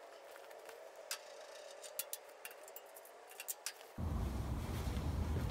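Scattered light metallic clicks and taps as the bandsaw's front wheel cover and hardware are handled. About four seconds in, a steady low rumble starts abruptly.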